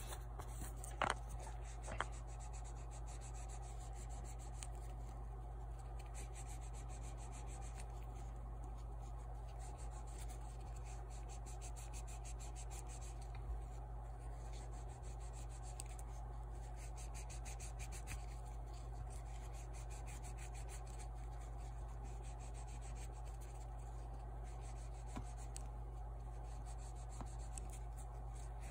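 Steady, rapid hand rubbing on a small lock cover, polishing the area around the drilled hole to take out drill-bit scratches. There are a couple of light knocks about one and two seconds in.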